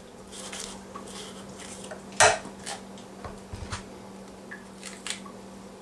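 Kitchen knife and green bell pepper being handled on a wooden cutting board: scattered taps and clicks, the loudest knock about two seconds in, over a steady low hum.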